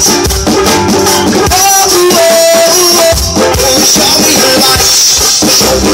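Live rock band playing loudly: electric guitars over a drum kit, amplified through a PA.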